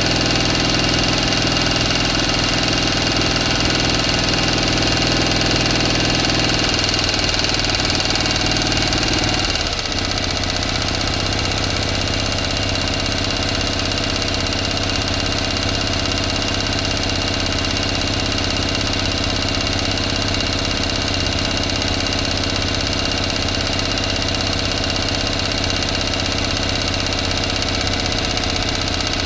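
A motor running steadily, with a low hum and a steady high whine; its sound shifts and drops slightly in level about ten seconds in.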